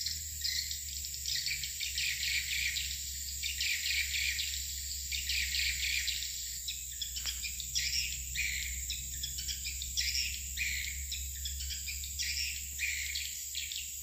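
Swiftlets chirping around a swiftlet house, a continuous stream of short, high, falling chirps, about two or three a second, over a steady high-pitched insect drone and a low steady rumble.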